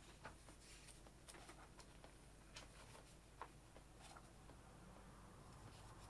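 Near silence: room tone with a low hum and a few faint, scattered small clicks.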